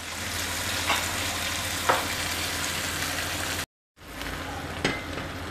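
Onions, capsicum and fresh tomato paste sizzling in oil in a non-stick frying pan, a steady hiss, with a few soft knocks as a wooden spatula stirs the sauce. The sound cuts out completely for a moment just past halfway.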